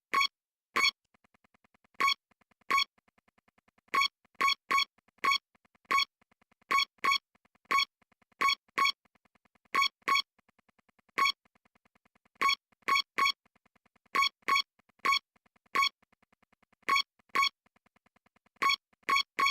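A run of short electronic beeps, all on the same pitch, at uneven intervals of roughly one and a half a second, with a very faint buzz between them.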